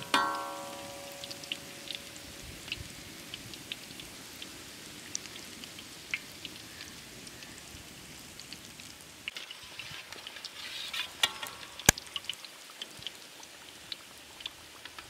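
Chicken liver cutlets deep-frying in a wok of hot oil: a steady fizz with scattered crackles and pops. Right at the start a metal clang rings out and dies away over about two seconds, and a fainter ring and a sharp click come about eleven seconds in.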